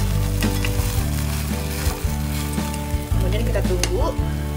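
Egg and red-bean omelette sizzling as it fries in a small nonstick pan, with a few sharp scrapes and clicks as a metal spatula works under its edge. Background music plays with a steady beat.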